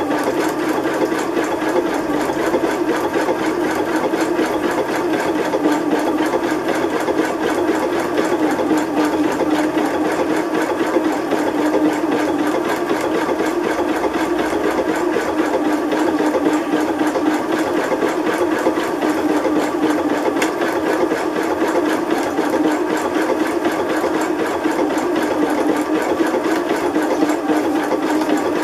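Janome electric sewing machine running steadily at reduced speed, its needle stitching rapidly and evenly through fabric.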